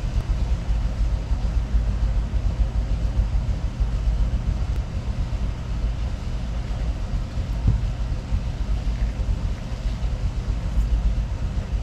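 Steady low rumble with no distinct events, and one soft knock about eight seconds in.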